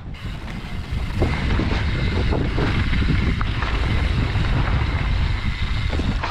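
Wind buffeting the camera microphone as a mountain bike rolls downhill over a rocky trail, with tyre and bike rattle mixed in; it gets louder about a second in.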